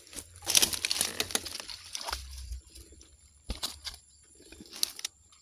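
A freshly caught sepat (gourami) flapping and thrashing on the line, a rapid flutter that is loudest from about half a second to a second and a half in, followed by a few scattered clicks and rustles as the fish is handled into a mesh keep net.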